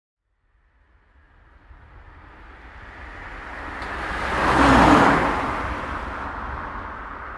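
A road vehicle passing close by: its noise, with a low rumble, swells over several seconds, peaks about five seconds in, then fades.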